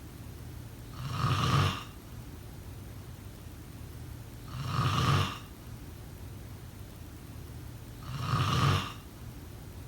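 A person snoring: three snores about three and a half seconds apart, each swelling up and falling away over about half a second to a second, with a steady low hum between them.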